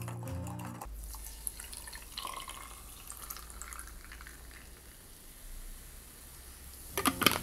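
Soda water poured from a plastic bottle over ice into a tall glass, splashing and fizzing as it fills, starting about a second in. A few sharp clinks near the end.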